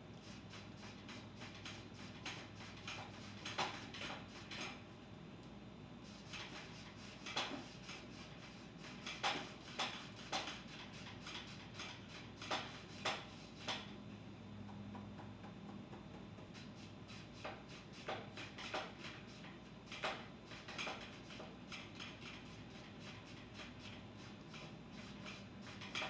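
A two-inch paint brush scrubbing paint onto canvas, in irregular runs of short, scratchy strokes.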